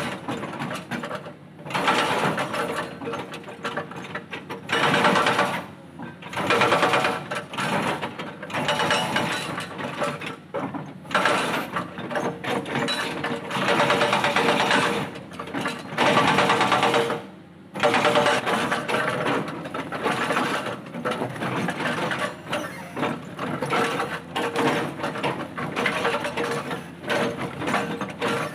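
Hydraulic breaker on a Caterpillar excavator hammering boulders: a rapid, continuous chattering of blows in long runs, broken by a few short pauses.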